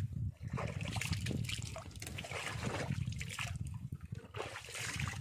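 Seawater splashing and trickling against the side of a small wooden outrigger boat as hands work in the water by the hull, coming and going in uneven surges over a steady low rumble.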